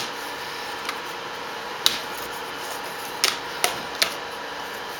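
The plastic screen bezel of a Dell Inspiron 14z laptop being pried off by hand. About six sharp plastic clicks at uneven intervals as its retaining tabs snap loose, the last three close together near the end.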